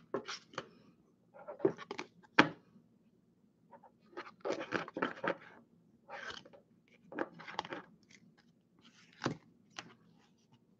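Clear rigid plastic card holders clicking and rustling as they are picked up, shuffled against each other and set down on a wooden table, in short irregular bursts.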